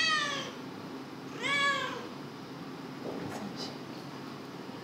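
Cat meowing twice: one call already under way at the start and a full call about one and a half seconds in, each falling in pitch.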